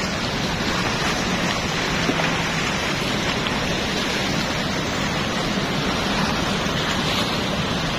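Steady rushing of river water pouring through a weir's sluice gates and churning below it.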